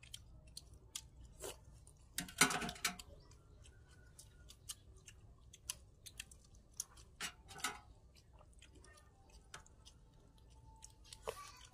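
People eating by hand from a shared tray: chewing and lip smacks with scattered short clicks. There is a louder burst of clatter and smacking about two and a half seconds in, and another near eight seconds.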